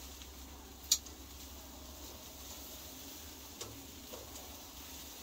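One sharp click about a second in and a couple of fainter clicks later, over a low steady hum.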